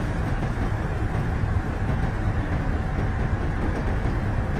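Heavy machinery running: a steady low rumble.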